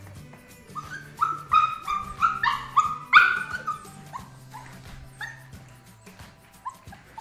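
Puppies yipping in a quick run of short, high-pitched barks while waiting to be fed, loudest about three seconds in, then thinning out to a few fainter yips. Soft background music runs underneath.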